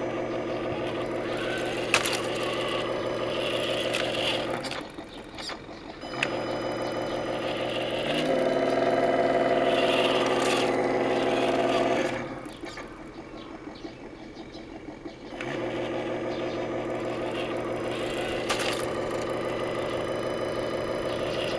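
Simulated truck engine sound from the Tamiya Hilux High-Lift RC truck's onboard sound unit. It alternates between a quiet idle and a louder running note. It steps up to a higher, louder rev for several seconds in the middle, drops back to idle, then runs again near the end.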